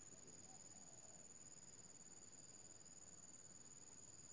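Faint, steady high-pitched insect chorus, one continuous trill with a weaker, lower band beneath it.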